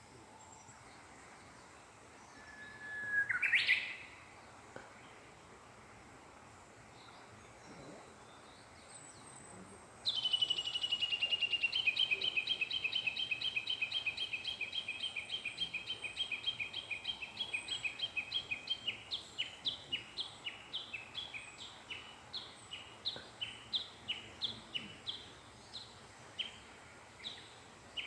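Wild songbird singing: one whistled note that ends in a quick rising flourish, then, about ten seconds in, a long rapid run of repeated notes that gradually slows into separate, spaced notes.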